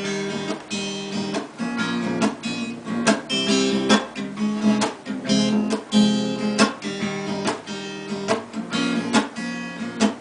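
Acoustic guitar strumming chords in a steady rhythm, about two strokes a second, with no singing over it.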